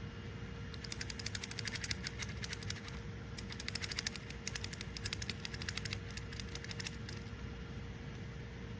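Rapid, irregular small clicks and clatter of small hard parts being handled, starting about a second in and dying away after about seven seconds.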